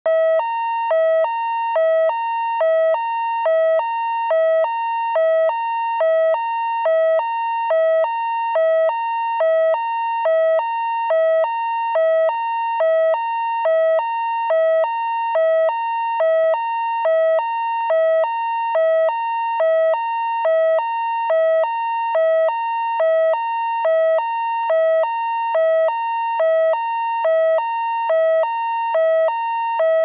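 Two-tone hi-lo fire truck siren, switching evenly back and forth between a low and a high tone, each held a little under half a second, with no glide between them.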